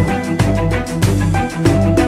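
Background music with a steady beat, sustained chords and a strong bass line.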